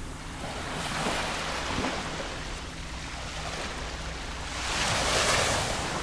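Gentle waves lapping on a sandy beach: a small wash of surf swells about a second in, and a louder one near the end.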